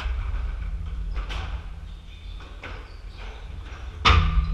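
Squash rally: a squash ball struck by rackets and smacking off the court walls, with players' footsteps on the wooden floor, as several sharp knocks. The loudest is a hard smack near the end that rings briefly.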